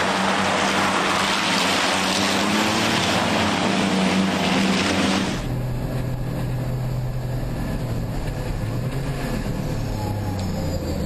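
Race trucks' turbo-diesel engines running hard past the track, then an abrupt switch a little past halfway to onboard sound: a steadier, lower engine drone heard from a truck following two others.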